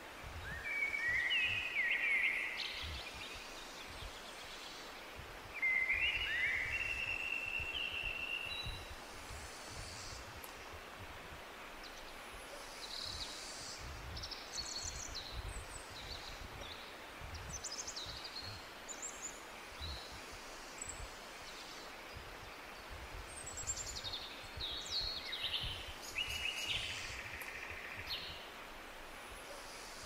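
Several forest birds singing: short warbling phrases about a second in and again around six to eight seconds are the loudest, followed by thinner, higher-pitched calls scattered through the rest. Beneath them is a steady hiss and an uneven low rumble.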